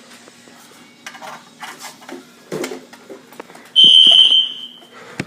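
A few faint clicks and knocks, then a high-pitched electronic alarm tone that sounds once, holds for just over a second and fades. This is the fire alarm system sounding in test mode as the detector under test is tripped.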